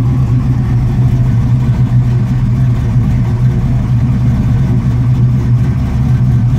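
Small-block Ford 347 stroker V8 with FiTech fuel injection running at a steady fast idle of about 1,500 rpm just after a cold start, heard from inside the car.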